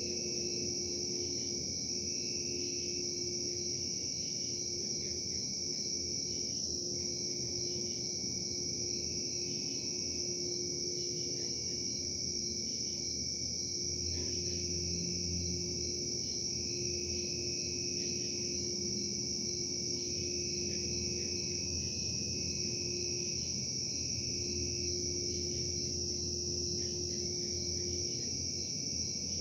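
Industrial machinery running: a steady low hum with tones that switch on and off every second or two, under a constant high-pitched whine or chorus.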